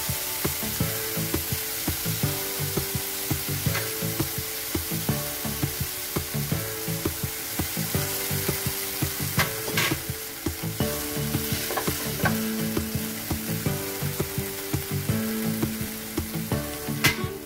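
Chopped vegetables sizzling in a hot nonstick frying pan while a silicone spatula stirs and scrapes them, with short tapping strokes and a couple of sharper clicks.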